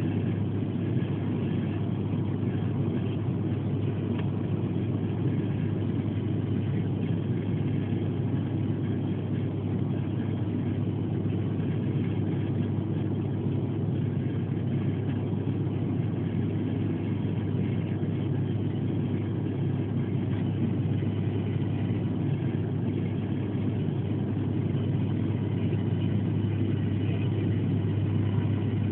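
Steady drone of a turboprop airliner's engines and propellers heard inside the cabin, with a strong low hum under the noise, on approach with the landing gear down.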